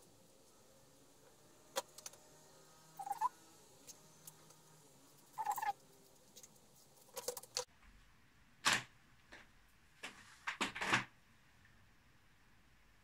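Hands handling potted green grapevine stems and their plastic pot: scattered faint rustles and knocks, most of them in the second half. Two short pitched chirps sound in the first half, the first gliding upward.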